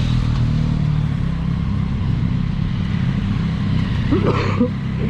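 Yamaha MT-07's 689 cc parallel-twin engine running with a steady low drone. A brief rising sound about four seconds in.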